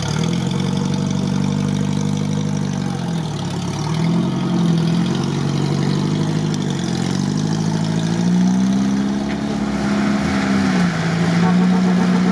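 UAZ off-roader's engine revving up and easing back about three times, each rise held for a couple of seconds, then settling to a steady lower run near the end.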